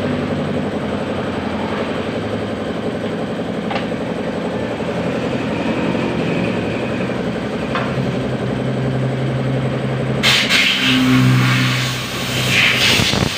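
An engine running steadily in the background, turning brighter and harsher about ten seconds in.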